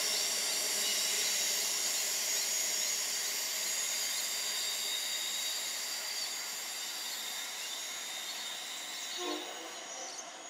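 Queensland Rail IMU electric train running away into the distance: a steady hiss with several high, steady ringing tones that slowly fades.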